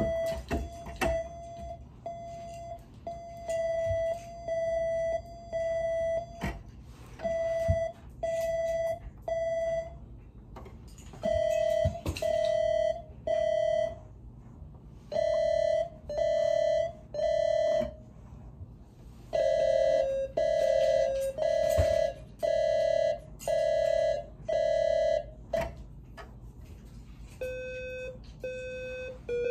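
Electronic beeping: a long run of steady single-pitch beeps, each about half a second, in groups of three to six with short pauses between, the pitch stepping lower group by group. A few faint knocks come between them.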